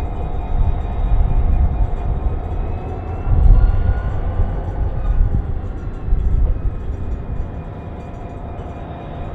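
Six-car Mugunghwa passenger train running on the rails: a steady low rumble with faint whining tones that rise in pitch a few seconds in, and a louder surge of rumble about three and a half seconds in.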